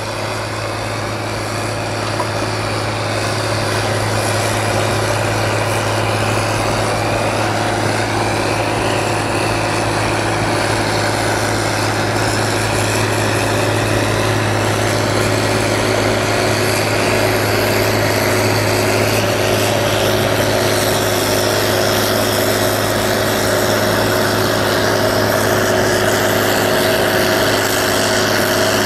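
Volvo L70E wheel loader with a front-mounted Øveraasen snowblower running steadily, blowing snow up through its chute into a truck. There is a steady low engine hum under a constant rush of machinery and thrown snow.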